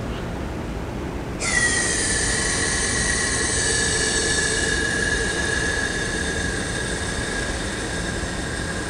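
Liquid carbon dioxide rushing through the expansion valve into a dry ice maker's chamber: a high, whistling hiss with several tones that starts suddenly about a second and a half in and holds steady, its pitch sinking slightly. This is the CO2 decompressing from cylinder pressure to atmospheric pressure, which chills it so that part of it freezes into dry ice.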